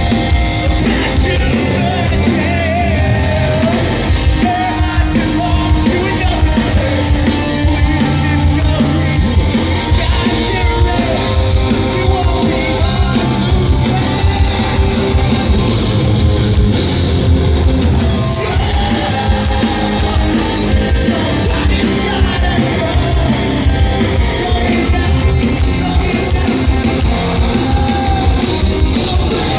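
Live heavy rock band playing loud through a PA, with distorted guitars, drums and a singer, partly yelled vocals.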